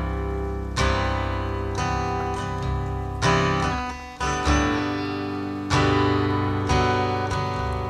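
Slowed-down, reverb-heavy acoustic guitar chords strummed about once a second, each ringing out long, with no vocals.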